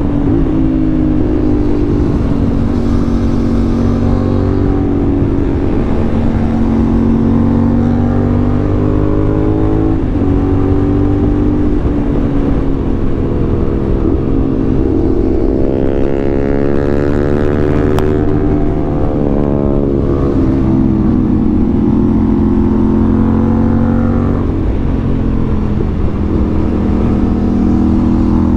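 A CFMoto 450SR's parallel-twin engine running under way. Its pitch rises and falls repeatedly as the throttle opens and closes, with a long climb to a peak about two-thirds of the way through, marked by a sharp click, before it drops away again.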